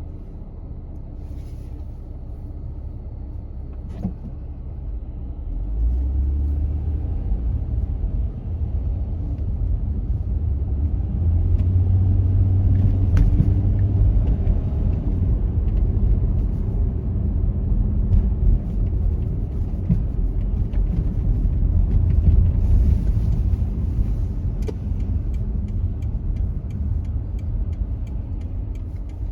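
Car driving in city traffic: a steady low rumble of road and engine noise that grows louder about six seconds in and eases off near the end.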